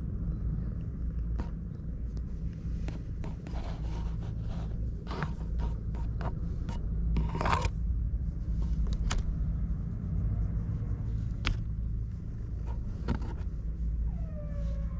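Scattered scrapes and rustles of a hand stroking a ginger cat against a plastic crate basket, over a steady low rumble.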